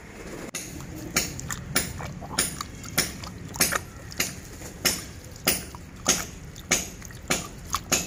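Hand swishing water and neem leaves around in a plastic tub, with a splash in a regular rhythm a little under twice a second.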